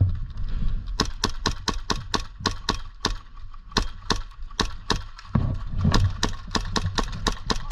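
Airsoft guns firing single shots in quick succession: a run of sharp cracks, about three to five a second, beginning about a second in, with a low rumble underneath at times.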